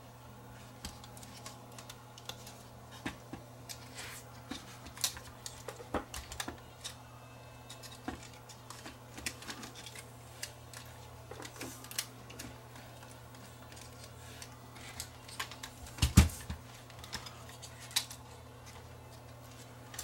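Irregular small clicks, taps and knocks of a Sony DCR-TRV530 camcorder's parts being handled and fitted together by hand during reassembly, with a cluster of louder knocks about 16 seconds in.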